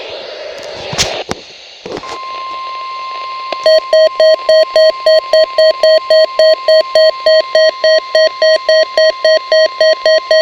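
NOAA weather radio receiver picking up the weekly test: a short stretch of radio static with a couple of clicks, then a steady 1050 Hz weather alert tone comes on about two seconds in. About a second and a half later the receiver's alarm starts beeping loudly over it, about four beeps a second.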